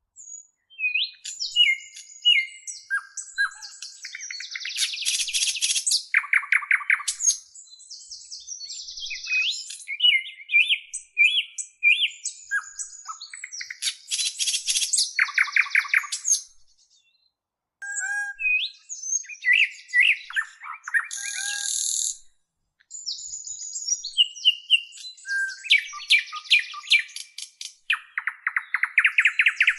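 A bird singing a varied series of chirps, short whistled glides and rapid stuttering trills, in phrases with short pauses between them.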